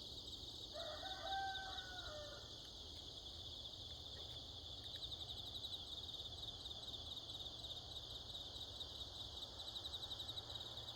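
A rooster crowing once, a call of about two seconds starting just under a second in and dropping in pitch at its end, over the steady chirping trill of crickets.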